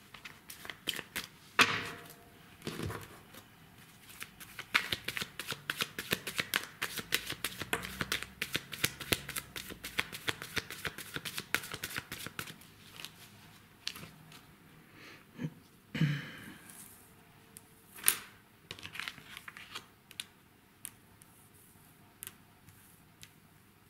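Tarot cards being shuffled by hand: a quick, dense run of card flicks lasting several seconds, followed by a few separate soft slaps as single cards are laid down.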